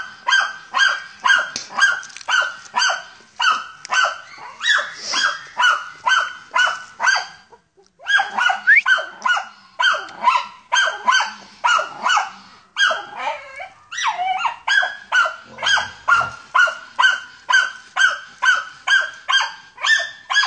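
A German hunting terrier (Deutscher Jagdterrier) bays at a wild boar in a steady run of sharp, high barks, about two to three a second. The barking breaks off briefly about eight seconds in and falters again around fourteen seconds.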